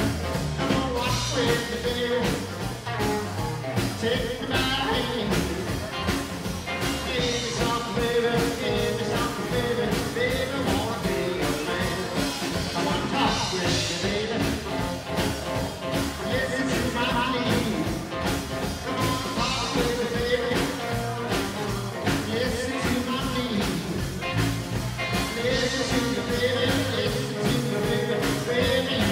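Live rockabilly band playing a song at a steady beat: electric guitar, strummed acoustic guitar and drums.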